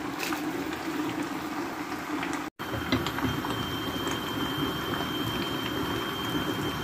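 Cabbage soup simmering and bubbling in an enamel pot, with a spoon stirring in freshly added shredded cabbage and light clinks against the pot. The sound cuts out for an instant about two and a half seconds in, and a faint steady high tone runs after that.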